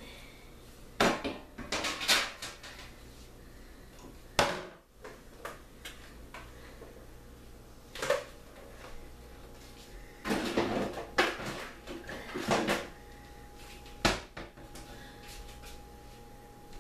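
Kitchen clatter while things are put away: cupboard doors and drawers opening and closing and dishes being set down, a scattered series of knocks and clunks. A faint steady tone comes in about two-thirds of the way through.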